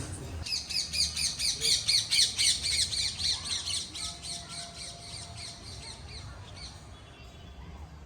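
A bird calling: a quick run of short, high, repeated chirps, loudest in the first few seconds and fading away after about six seconds.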